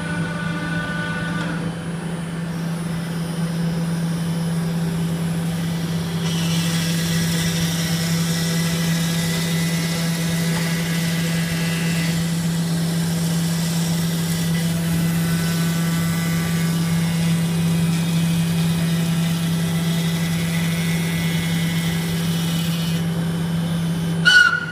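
CNC router running while cutting a fibreglass-skinned foam composite panel: a steady machine hum, with a brighter cutting hiss that comes in about six seconds in and drops away near the end. A brief, louder sharp sound comes just before the end.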